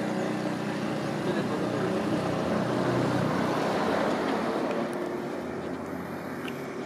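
Engine noise with a steady low hum that swells to its loudest about three to four seconds in, then eases off.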